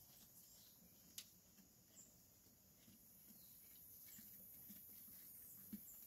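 Near silence with faint rustling and small clicks from Dorper sheep feeding on hay from a hay net, with one sharp click about a second in and a few soft low knocks near the end.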